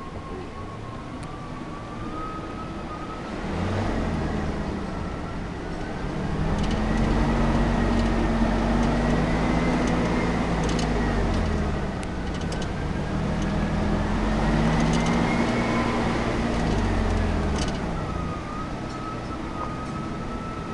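Off-road 4x4 engine crawling a rocky trail, revving up and easing off twice. A whine rises and falls in pitch with the revs. Scattered sharp knocks and clicks sound over it.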